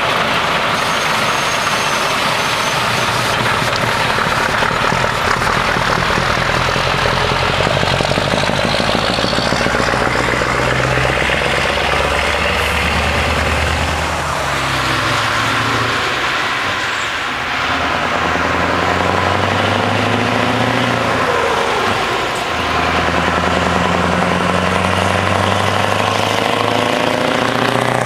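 Scania 144L 530's 14-litre V8 diesel with an open exhaust pipe, pulling away and accelerating through the gears. The engine note climbs and then drops back at each shift, several times over, as the truck drives past.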